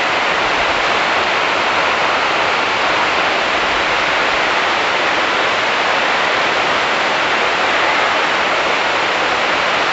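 Heavy rain pouring on a large shed roof: a steady, even hiss with no let-up.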